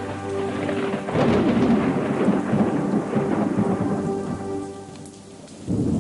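Thunder and rain, a rumble swelling suddenly about a second in and dying away, over a held, sustained musical chord; a second thunderclap breaks in near the end.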